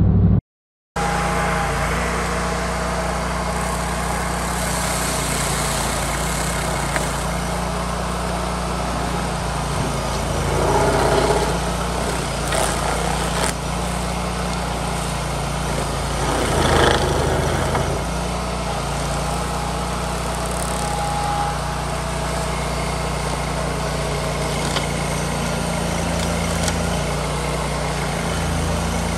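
Vermeer tracked stump grinder's engine running steadily while its cutter wheel grinds through shrubs and soil in a flower bed. The noise swells twice partway through.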